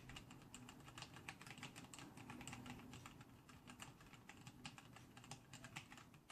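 Faint, rapid typing on a Razer BlackWidow Ultimate Stealth 2014 mechanical keyboard with Kailh Orange tactile switches: a quick, uneven run of soft keystroke clicks.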